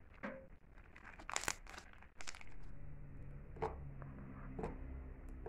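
Slime being folded and squeezed by hand, crackling and popping as trapped air bursts out, in a quick cluster during the first two and a half seconds. Then a few softer pops, about one a second, as it is pressed flat.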